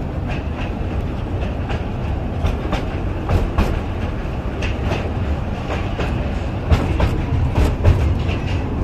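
Small joy-ride train running along its track: a steady low rumble with the wheels clicking at irregular intervals.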